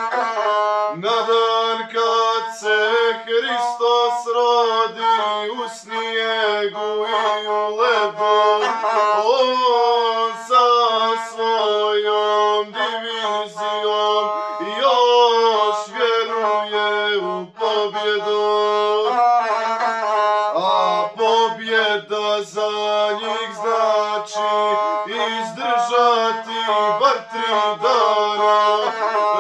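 Male voice singing a South Slavic epic song accompanied by the gusle, a single-string bowed folk fiddle, played with a bow.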